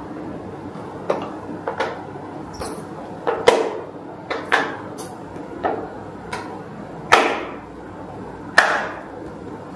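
Pieces of a hard, glossy white bubble-shaped container being handled and set down on a wooden tabletop: a dozen or so irregular clunks and clinks, each with a short ring, the two loudest near the end.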